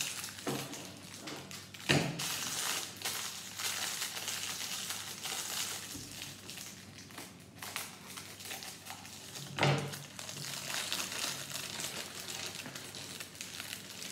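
Crinkling of a small plastic Lego parts bag being handled and opened, with two louder knocks, one about two seconds in and one near ten seconds.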